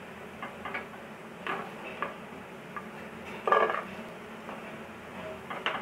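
Slotted metal spoon clinking and scraping against a frying pan and steel plate as fried dough pieces are lifted out of hot oil, over a faint steady sizzle. About six short clicks and knocks, the loudest a brief scrape about three and a half seconds in.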